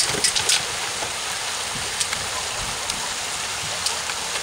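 Steady rush and splatter of water pouring down a flight of wooden stairs and splashing at the bottom, with a few faint ticks.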